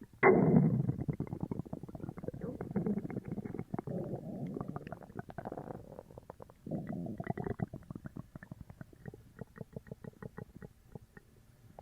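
Upset stomach gurgling and rumbling loudly after sugar-free gummies. A sudden surge comes right at the start and another about seven seconds in, with rapid small pops and bubbling between them that thin out near the end.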